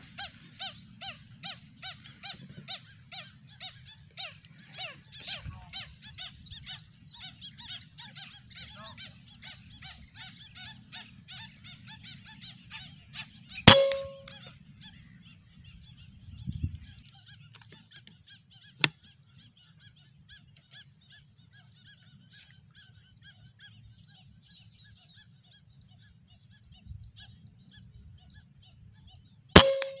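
Repeated honking bird calls, about two or three a second, loud at first and fading after about nine seconds. Two sharp PCP air-rifle shots ring out, one near the middle and one at the very end, each with a brief metallic ring, and a small click falls between them.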